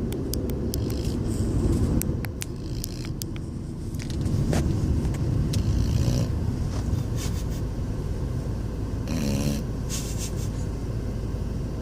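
Snoring in deep sleep: a low, rough rumble that swells and fades with the breathing, with a few faint clicks in the first few seconds.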